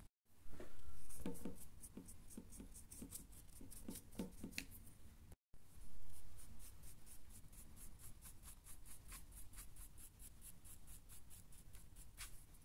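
Stiff paintbrush dry brushing over the sculpted fur of a 3D-printed statue: quick scratchy strokes, about five a second, broken twice by brief gaps.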